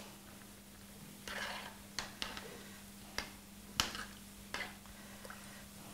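Metal spoon stirring in a stainless saucepan: a few light clicks and short scrapes against the pan, over a faint steady hum.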